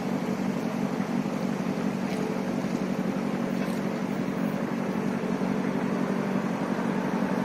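Heavy-haul truck's diesel engine running with a steady low drone as it pulls a low-loader carrying a tram car.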